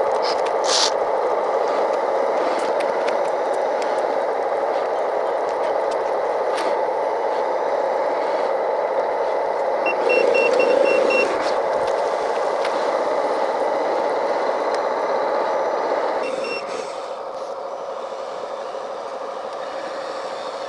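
Small electric pump of a 1/14-scale RC water truck running steadily as its rear spray bar wets down the ground. It swells briefly about ten seconds in, with a quick string of high beeps, then drops to a quieter steady hum about sixteen seconds in.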